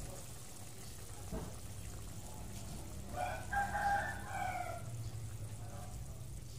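A rooster crowing once, about three seconds in: one long call that holds its pitch and then falls away, over a steady low hum.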